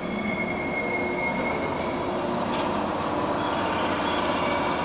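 JR 115-series electric train pulling into a station platform, its running gear giving a steady rolling rumble, with a thin high-pitched squeal for about the first second.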